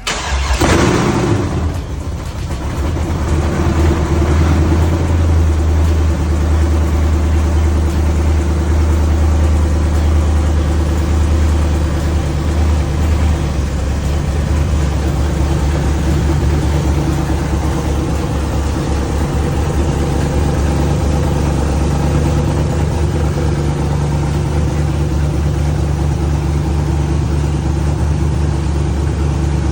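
GMC Sierra pickup engine firing up with a brief flare in the first second or two, then settling into a steady idle.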